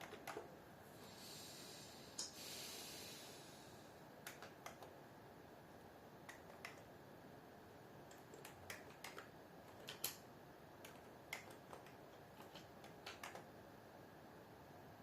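Faint, slow typing on a computer keyboard: scattered single keystrokes at an irregular pace, with a soft rushing hiss lasting about two seconds near the start.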